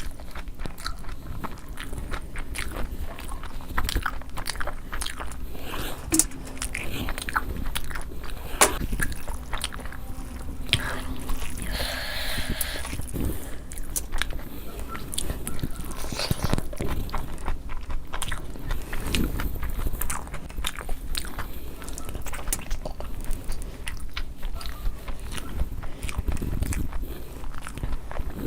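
Close-miked eating: a person biting and chewing food, with many small clicks and mouth noises throughout.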